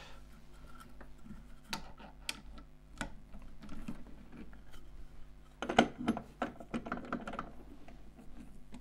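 Light clicks and knocks of woodturning tools and a wooden bowl being handled at a lathe, with a brief flurry of sharper clatter about six seconds in, over a faint steady hum.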